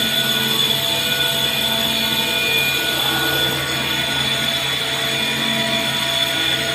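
Tunnel drill jumbo (boomer) drilling at the rock face: a loud, steady mechanical din with a constant high whine.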